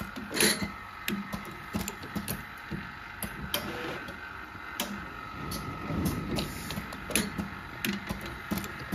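Automatic wax injection machine running, with a steady high hum and irregular clicks and knocks as rubber molds are set onto and carried along its conveyor.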